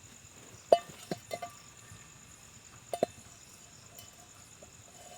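Metal cookware clinking as a pot and utensils are handled to make tea over a campfire: a few sharp clinks with brief ringing about a second in, then two more about three seconds in. A steady high cricket trill continues behind.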